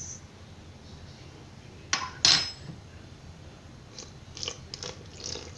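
Metal teaspoon clinking against a stainless steel mixing bowl while adding salt: two sharp clinks about two seconds in, then a run of lighter clicks and scrapes.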